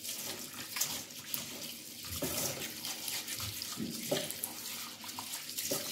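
Cold tap water running into a bowl of raw long-grain rice while a hand swishes and rubs the grains, washing the rice. Steady running water with irregular splashes.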